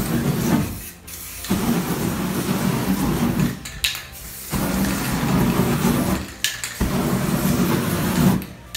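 Aerosol spray-paint can torched into a jet of flame: a rushing blast of fire in four bursts of about one to two seconds each, with short breaks between.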